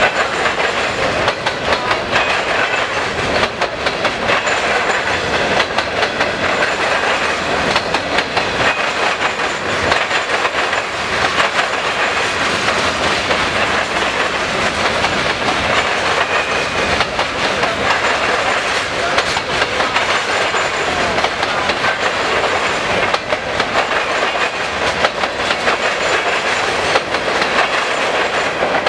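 Freight cars of a long train rolling past, steel wheels clattering in a rapid, continuous stream of clicks and bangs as they cross a rail diamond, over steady wheel-on-rail noise.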